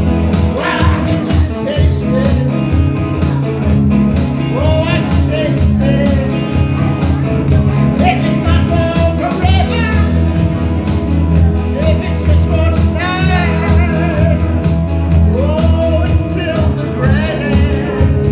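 Live rock band playing loudly: electric guitars, bass and a drum kit, with male voices singing through a PA system.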